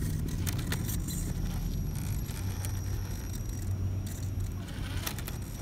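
Electric RC scale rock crawler climbing rock: its motor and geared drivetrain run with a steady low hum and a faint high whine. Sharp clicks and scrapes come from the tyres and chassis on the rock.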